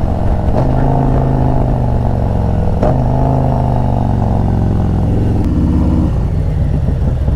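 Harley-Davidson V-twin motorcycle engine and exhaust running under way, its pitch stepping up a little about half a second in and dropping lower near the end, with a short click about three seconds in.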